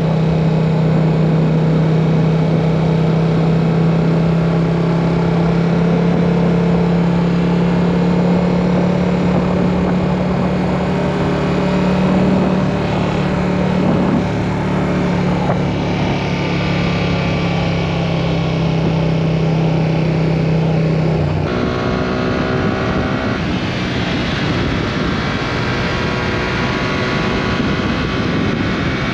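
Yamaha R7's 689 cc parallel-twin engine running at a steady cruise under wind rush. About three-quarters of the way through, the engine note changes abruptly and the sound gets a little quieter.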